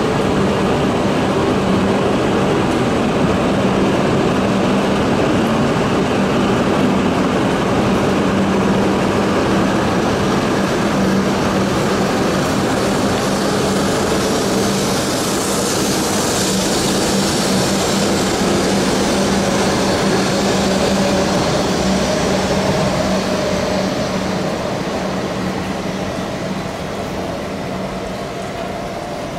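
JR East E5 series Shinkansen train pulling out of the station alongside the platform. It makes a steady running noise with a low hum, and a whine slowly rises in pitch as it gathers speed. The sound fades over the last few seconds.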